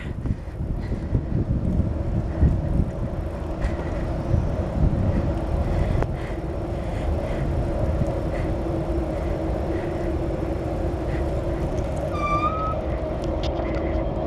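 Natural gas pipeline compressor station running with a steady droning hum, over a low rumble that is heavier in the first half. A short rising high tone sounds about twelve seconds in.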